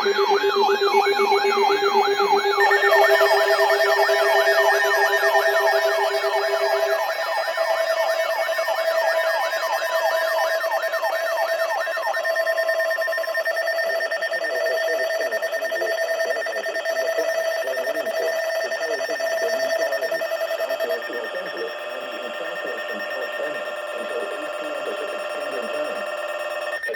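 Several emergency alert tones sounding on top of each other. A fast rising-and-falling siren-like warble runs for about the first twelve seconds over steady alarm tones of different pitches. The lowest steady tone stops about seven seconds in, and the tones thin out about twenty seconds in.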